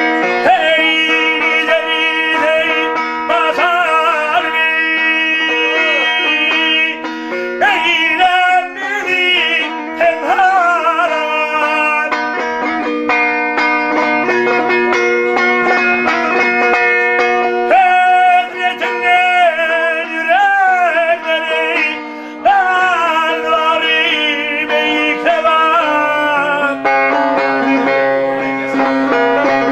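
Turkmen dutar, a two-stringed long-necked lute, strummed fast and steadily while a man sings a bagshy folk song over it, in phrases whose pitch bends and wavers.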